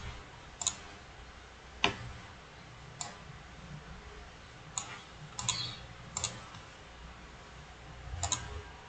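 Computer mouse clicking: short, sharp single clicks at irregular intervals of a second or so, some in quick pairs, over a faint low hum.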